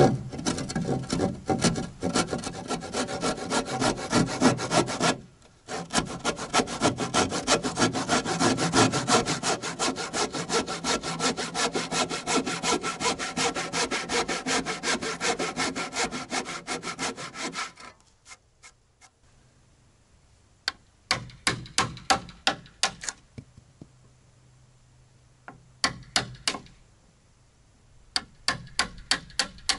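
Hand saw cutting through wood with fast, even back-and-forth strokes, pausing briefly about five seconds in and finishing about eighteen seconds in. After that come a few scattered runs of light knocks and taps.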